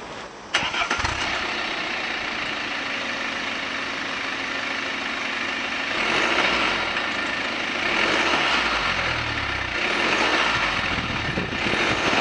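BMW 523d's 2.0-litre four-cylinder turbodiesel heard at its twin exhaust tips. It starts about half a second in and settles into a steady idle. From about halfway through it is revved in short blips roughly every two seconds.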